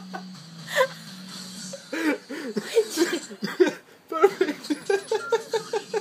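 A woman laughing hard: quiet at first, then breaking into open laughter about two seconds in, in quick repeated bursts that stop briefly just before four seconds and start again.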